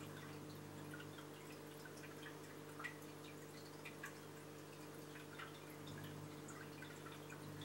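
Aquarium filtration running faintly: a steady hum from the pump and filter, with small, scattered drips and trickles of water throughout.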